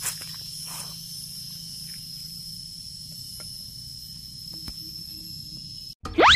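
Outdoor insect chorus: a steady high-pitched insect call over a faint low hum. Near the end a loud rising whistle-like sound effect cuts in.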